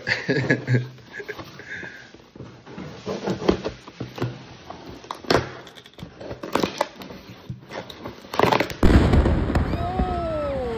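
Packing tape being slit with a blade and a cardboard box being opened, with scrapes, tape rips and sharp knocks of cardboard. About nine seconds in a sudden, much louder explosion takes over: a continuous blast with crackling and several falling whistles.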